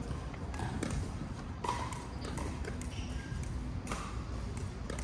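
Irregular sharp pops of pickleball paddles striking the plastic ball and the ball bouncing on the hard court, from several courts at once, over a steady low background hum.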